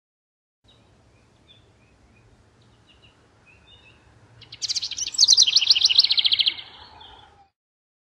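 Wren singing: a few soft, high chips, then a loud, fast trill lasting about two seconds that tumbles downward in pitch.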